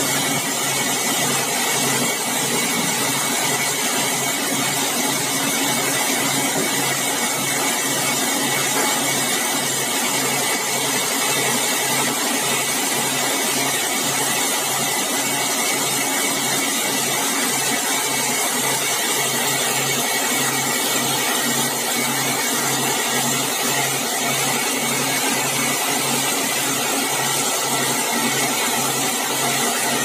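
Large vertical band sawmill running steadily and sawing bengkirai hardwood logs into boards, with a low throb repeating about one and a half times a second under the steady whine of the blade.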